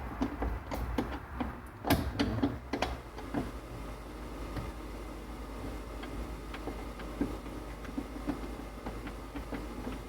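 Hand work on a truck door: a run of sharp clicks and knocks in the first three seconds, the sharpest about two seconds in, then fainter scattered ticks over a steady low hum.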